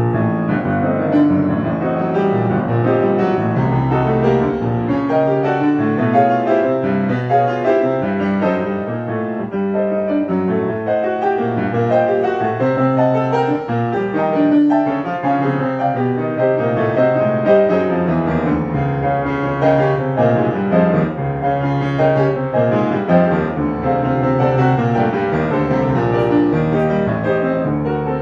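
Solo piano playing a classical piece, starting suddenly out of silence and running on in dense, continuous notes across the middle and low range.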